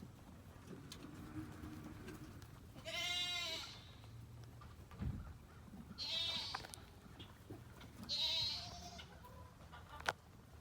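Livestock bleating three times, each call a short wavering cry under a second long, about three, six and eight seconds in.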